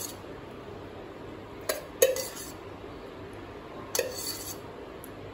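A spoon knocking against a metal cooking pot as dollops of ghee are dropped onto the rice. There are a few sharp clinks: one at the start, two close together about two seconds in, and another about four seconds in.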